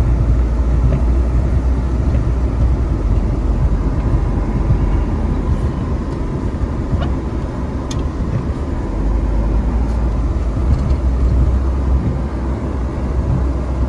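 Car driving through deep snow, heard from inside the cabin as a steady low rumble of engine and tyres.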